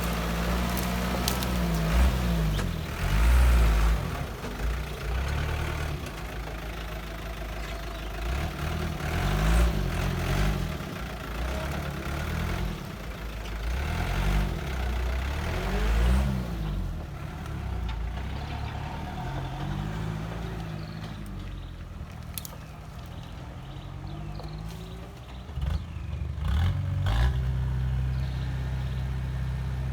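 Heavy machinery diesel engine running and revving up and down again and again, its pitch rising and falling, then settling to a steady run near the end. A few sharp knocks come in between.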